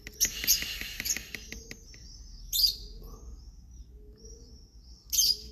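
Young birds chirping in thin, high peeps. Rustling and rapid scratchy clicks run through the first two seconds, with a couple of short louder bursts later on.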